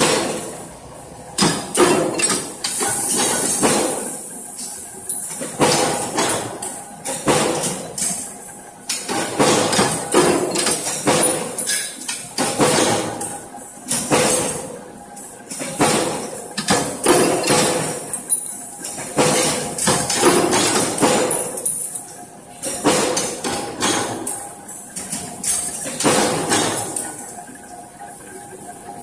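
Mechanical punch presses stamping steel strip for furniture butt hinges: rapid metallic clanks of the ram striking, in bursts broken by short lulls every few seconds, over a faint steady hum.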